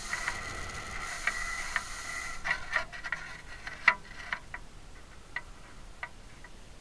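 Air rushing past the on-board camera of a descending model rocket, a steady hiss with a faint whistle that dies away about two and a half seconds in. Scattered light clicks and ticks run on after it, the sharpest about four seconds in.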